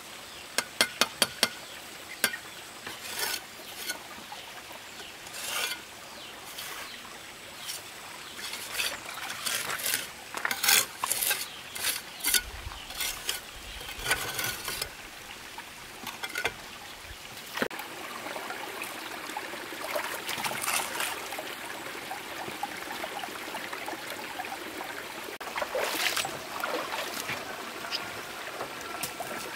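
Hand bricklaying with a steel trowel: a quick run of sharp taps about a second in as bricks are knocked into place, then scattered taps and several scrapes of the trowel through cement mortar.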